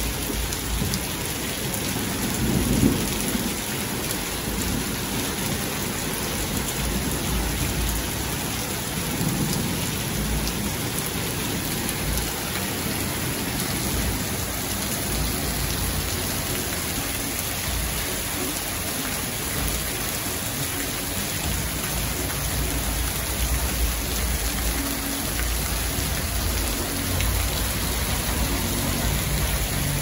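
Heavy rain hissing down steadily on a street and wet road, with low uneven rumbling underneath.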